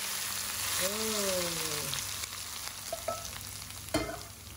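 Hot cooking oil poured onto a green bird's-eye chilli and garlic sambal in a stone mortar, sizzling: a loud hiss that is strongest over the first couple of seconds and then dies down as the oil cools. A sharp knock near the end.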